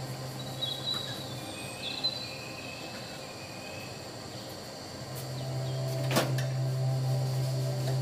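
A steady low hum that stops just after the start and comes back about five seconds in, with a sharp click about a second after it returns.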